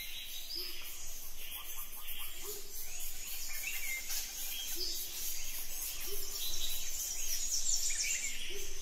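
Tropical forest ambience: a steady high chirring of insects and birds, with short chirps over it and a few brief low calls every second or two.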